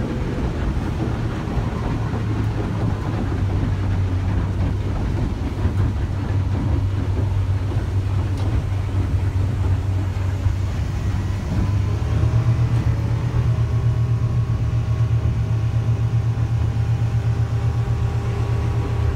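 Outboard motor driving a small cabin boat at speed, heard from inside the cabin: a steady low engine drone with water rushing along the hull. About twelve seconds in, the drone becomes steadier and more even, with higher tones over it.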